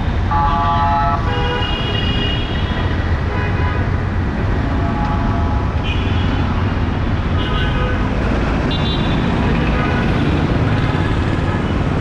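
Busy city street traffic: a steady rumble of passing cars and auto-rickshaws, with vehicle horns honking in short toots several times.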